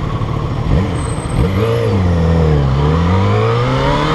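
Yamaha XJ6 motorcycle's 600 cc inline-four idling, then two quick throttle blips about a second in. The revs dip and then climb steadily as the bike pulls away from a standstill.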